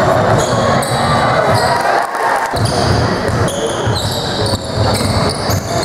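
A basketball being dribbled on a wooden sports-hall floor, with repeated bounces and the high, short squeaks of trainers on the court.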